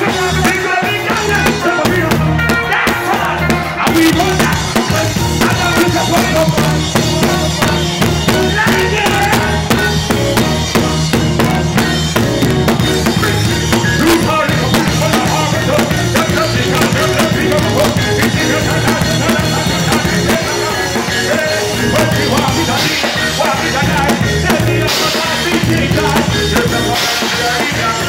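Live reggae band playing loud, with the drum kit and cymbals close by and a vocalist singing over the band, recorded on a phone from behind the drums.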